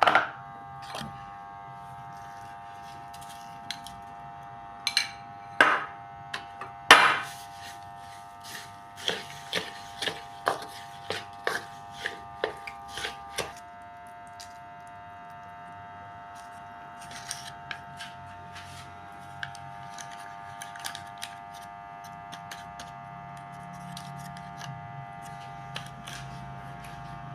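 A steady electric hum runs throughout, with part of it cutting out about halfway. Over it come a series of sharp knocks and clicks, a few loud ones and then about two a second for several seconds, followed later by fainter clicks, like kitchen utensils against a pan or bowl.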